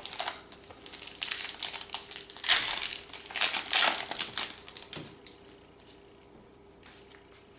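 Trading card pack wrapper crinkling as it is handled and crumpled, in a run of rustling bursts that are loudest a little past the middle and die away after about five seconds.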